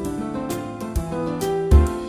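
Instrumental background music with a melody of changing notes over a steady beat.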